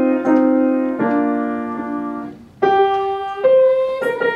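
Piano playing slow chords that ring and die away. There is a brief pause about two and a half seconds in, then a new phrase begins.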